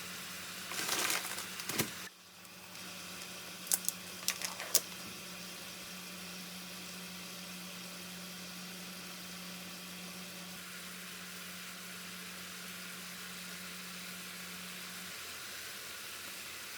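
Kitchen cooking sounds: a steady hiss over a low electrical hum, with a short rustle about a second in and a few sharp clicks around four seconds. The hum stops near the end.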